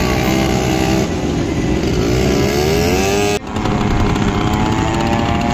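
Small quad bike (ATV) engines running, one revving up with a rising pitch; about three and a half seconds in the sound breaks off for an instant and the engines carry on running steadily.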